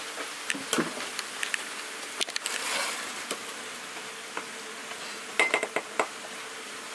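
Wooden spoon stirring soup in a metal pot, knocking and scraping against the sides in scattered clicks, with a quick run of ringing knocks near the end. A faint steady hum runs underneath.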